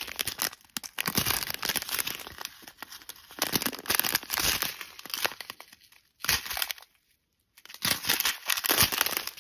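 Thin clear plastic bags of diamond-painting drills crinkling as they are handled and turned over, in irregular bursts of crackle with a short pause about two-thirds through.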